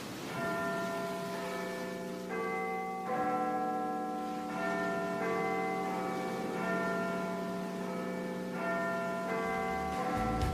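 Background music of sustained bell-like chime notes, several ringing together and changing every second or so in a slow melody.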